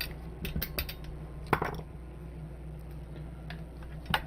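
Scattered light clicks and clinks of metal parts and tools being handled while a bench power supply is taken apart: a quick run of clicks in the first second, a sharper knock about one and a half seconds in, and a couple more near the end, over a steady low hum.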